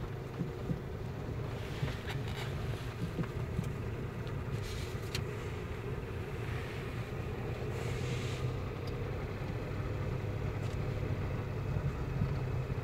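Car engine running steadily under light load while a Toyota hatchback drives slowly over dirt ground, heard from inside the cabin as a low hum with tyre and road noise. A few short bursts of hiss come through about 5 and 8 seconds in.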